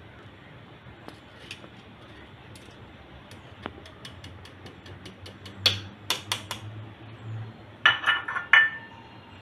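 A glass bowl and a stainless-steel mesh sieve clinking and knocking together as cocoa powder is tipped into the sieve and worked. There is a run of faint light ticks, then several sharp taps past the middle, and a loud cluster of ringing knocks near the end.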